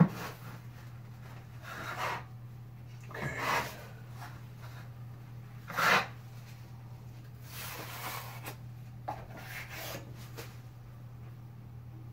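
Drywall knife scraping joint compound across a ceiling in separate strokes every second or two, the loudest about six seconds in. A steady low hum runs underneath.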